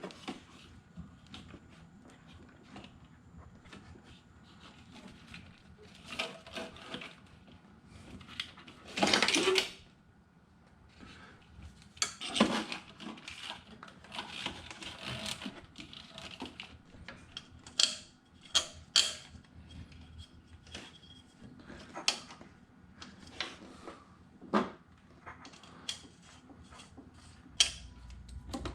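Scattered clicks, taps and knocks of battery cables, wire loom and hand tools being handled in an engine bay, with a louder noisy stretch of about a second about nine seconds in and another around twelve seconds.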